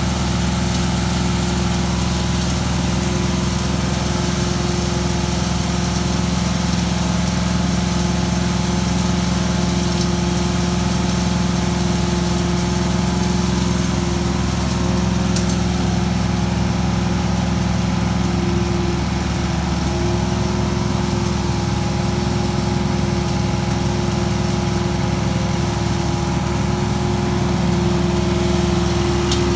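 Engine-driven stable vacuum unit running steadily, a constant engine note with a hiss of suction over it.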